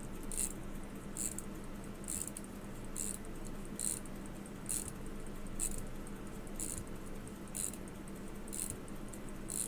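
Elgin hunter pocket watch movement being wound: its click ratchets over the ratchet wheel in short, faint bursts of clicking about once a second, the winding now catching properly after a missing plate under the ratchet was refitted. A steady low hum runs underneath.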